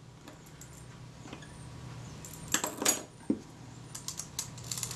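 Small metallic clicks and clinks as a Kodak Retina IIIc camera body and its small parts are handled: a few sharp clicks about halfway through, then a quicker cluster of clicks near the end.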